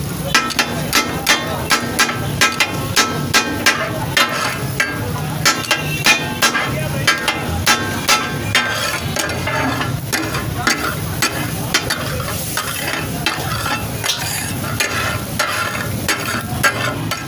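Two steel spatulas striking and scraping a large flat iron griddle (tawa) as fish katakat is chopped and tossed in hot oil. The spatulas clang and ring in a rapid beat of about three strikes a second over a steady sizzle of frying. The beat turns sparser and less regular about halfway through. This clatter is the 'takatak' the dish is named for.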